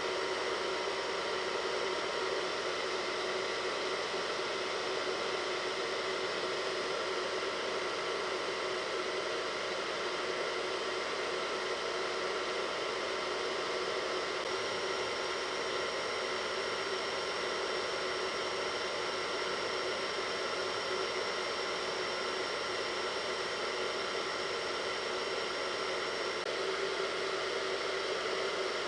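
Hair dryer blowing steadily, a constant airy rush of noise; a faint high whine joins about halfway through and drops out near the end.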